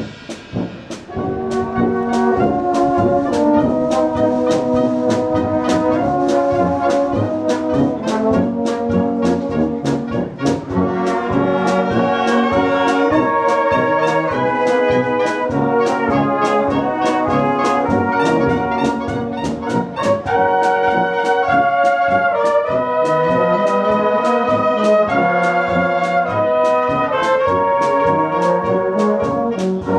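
Bohemian-style brass band playing live, with trumpets and trombones carrying the tune over a steady beat of about two strokes a second. The full band comes in about a second in.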